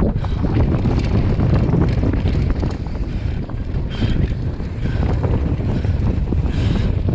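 Wind buffeting a chest-mounted action camera's microphone at speed, over the crunch of tyres on dry dirt and the rapid clicks and rattles of a Commencal Meta HT hardtail mountain bike bouncing over the rough trail.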